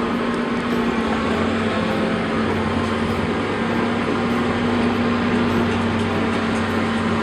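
Excavator's engine running steadily, a continuous hum with a noisy mechanical rumble.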